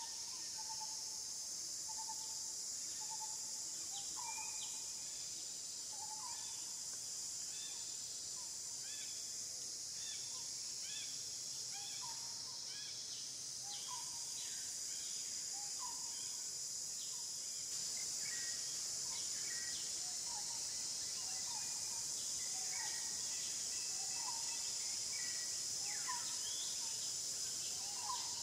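Steady high-pitched drone of insects, with many short chirping calls scattered over it; the drone grows a little louder about two-thirds of the way through.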